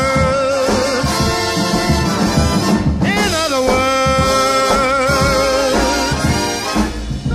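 Swing-style big-band music with brass, long held notes and sliding melodic lines; the sound dips briefly near the end.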